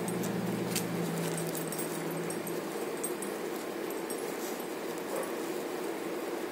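A young puppy grumbling low in its throat while it mouths the grass, fading out after about two seconds, with light rustling and small clicks from the grass.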